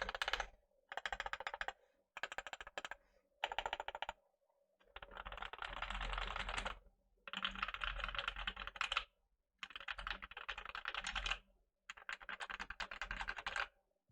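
Custom Tofu 65% mechanical keyboard with lubed, filmed Alpaca linear switches on a polycarbonate plate and PBT keycaps, typed on fast in bursts of a second or two with short pauses between.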